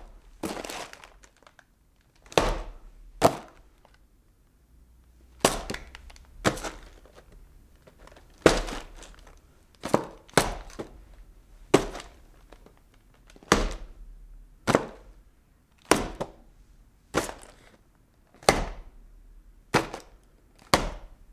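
Cardboard packing boxes being handled: a string of separate sharp thuds and knocks, about one a second, some followed by a brief papery rustle, with a short pause a few seconds in.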